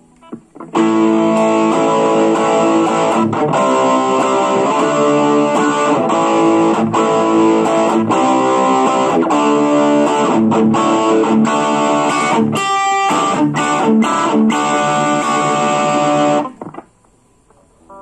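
Electric guitar played through a Blackstar Fly 3 battery mini amp, a run of picked notes and chords. It starts just under a second in and stops suddenly near the end.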